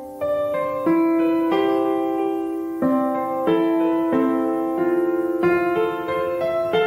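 Background piano music: a slow melody of single held notes and chords.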